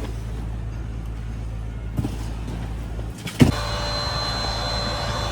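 A steady low motor hum; about three and a half seconds in, a sharp knock, and a second, higher-pitched machine hum starts up.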